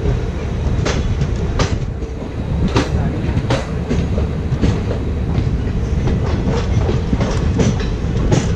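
Express train running at speed, heard from onboard: a steady low rumble of the coaches with sharp wheel clacks over the rail joints, about one or two a second and unevenly spaced.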